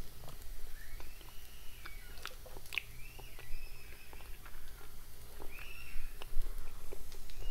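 A person chewing a mouthful of kinche (cracked grain) scrambled with egg while tasting it for salt: soft clicks and smacks of the mouth. A few faint high squeaks rise and fall over the chewing.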